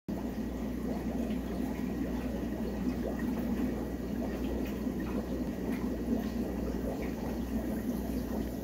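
Aquarium water bubbling and trickling steadily, over a low steady hum.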